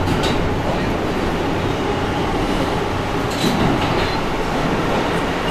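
Inside an R160A-2 subway car running on the line: a steady rumble of wheels and running gear on the rails, with a few sharp clicks and short high squeaks from the wheels about three and a half and four seconds in.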